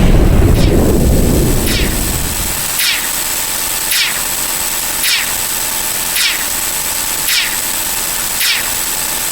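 Edited-in sound effects: a low rumbling boom that fades away over the first two seconds, and short quick downward chirps repeating about once a second over a steady hiss.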